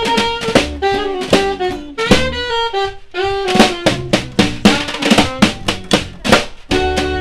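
Small live swing combo playing an instrumental break: a saxophone carries the melody in held and gliding notes over brisk snare drum and upright bass.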